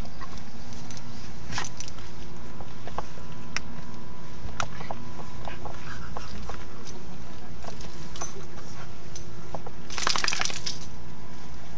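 Dog collar tags clinking in scattered light metallic clicks as a dog rolls and squirms on grass, then a brief rapid jingle about ten seconds in as it gets up and moves, over a steady low rumble.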